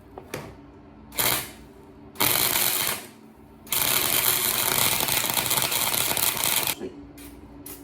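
Impact wrench hammering on a nut welded onto a stripped motorcycle bolt, in a short burst and then a longer run of about three seconds, trying to back the bolt out.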